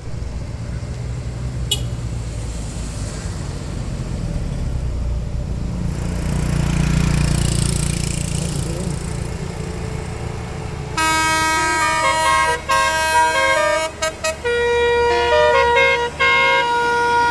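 A bus runs by with a low engine rumble that swells and fades. About eleven seconds in, a Basuri telolet horn starts playing a tune: several air-horn tones sounding together and stepping from note to note, with short breaks between phrases.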